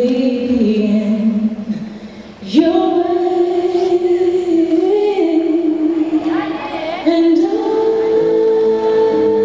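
Vocal music: sung voices holding long, wavering notes. They fade about two seconds in, come back louder half a second later, and move up to a higher, louder note near seven seconds.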